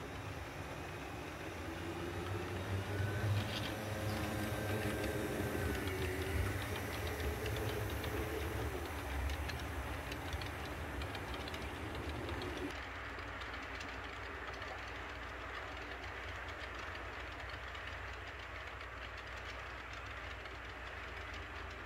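HO scale model train, Walthers F-unit diesels pulling a string of boxcars, running past with a low rumble and wheels clicking over the track. It is loudest in the first half. About thirteen seconds in it turns quieter and duller as the train runs on.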